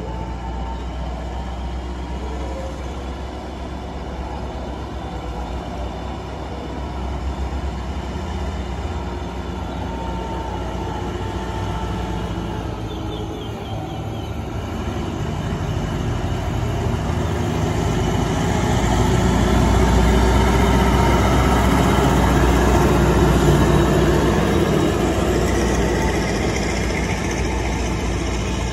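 Passenger train approaching and running past on the station tracks: a steady engine drone and rail rumble that grows louder about two-thirds of the way through, then eases slightly near the end.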